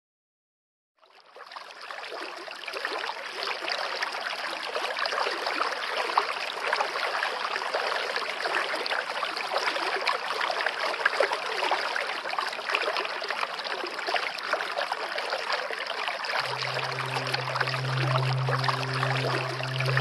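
Steady rushing water of a stream over rapids, fading in about a second in. Near the end, slow calm music with a low held note comes in underneath.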